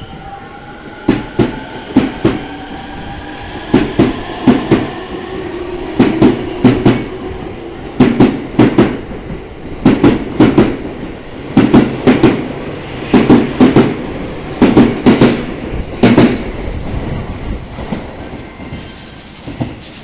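E231-series electric commuter train accelerating away from a station: its wheels clatter over the rail joints in double clicks that come faster and faster, with the rising whine of its traction motors in the first several seconds. The clatter stops about 16 seconds in as the last car passes the joint.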